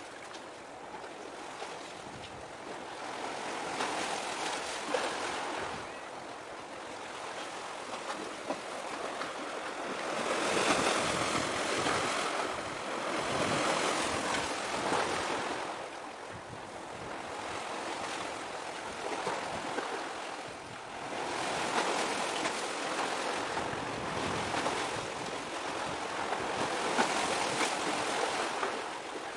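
Waves washing against the shore, in slow surges that swell and fade every few seconds.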